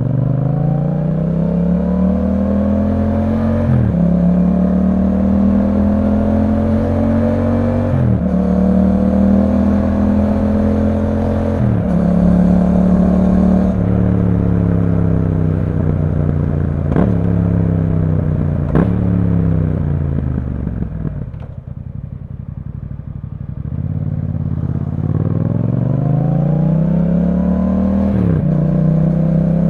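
Yamaha MT-07's 689 cc parallel-twin engine through an Akrapovič exhaust, pulling through the gears: the revs climb and drop at each of three upshifts, then fall away with two quick downshifts. It sinks to low revs for a few seconds past the middle, then pulls away again with one more upshift near the end.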